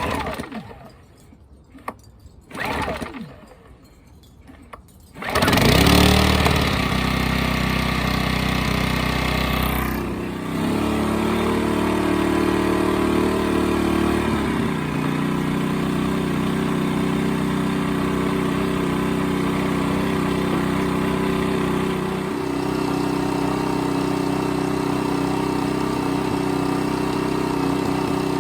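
ITC Power GG9i inverter generator's small petrol engine being started: a couple of brief cranking bursts, then it catches about five seconds in and runs steadily, its engine speed shifting up and down a few times.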